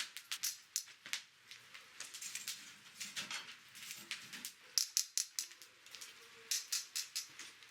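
Wood fire crackling, with irregular sharp pops and snaps several times a second.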